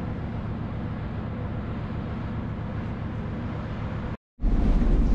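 Steady low hum of the Spirit of Tasmania car ferry's machinery, heard on the open deck beneath the funnel, with a hiss above it. About four seconds in the sound cuts out briefly, then a louder, deeper rumble takes over.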